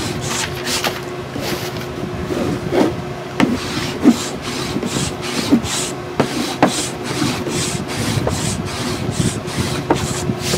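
Sandpaper on a sanding block rubbed over a painted chipboard box in short repeated strokes, a few a second, sanding back the antiquing cream to show the layer underneath.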